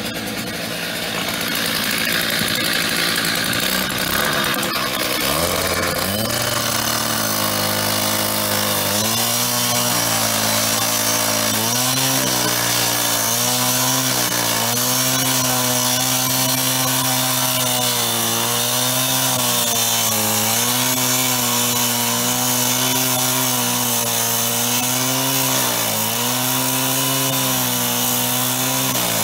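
Power saw cutting into a metal payphone's back to remove the security screws: a steady motor note that sags briefly every few seconds as the blade bites, over a constant high hiss.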